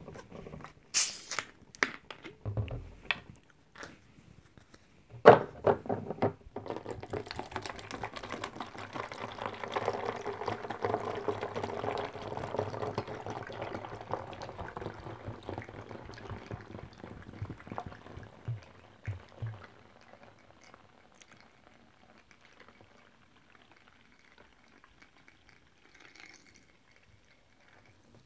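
Fizzy Fanta orange soda being poured, running steadily for about fifteen seconds. It is preceded by a few sharp clicks and knocks from handling the bottle and its cap.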